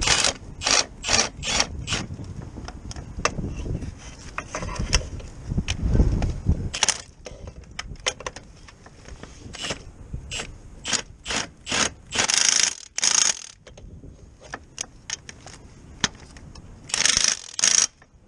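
Socket ratchet on a long extension bar clicking in short bursts of strokes with pauses between, turning a bolt.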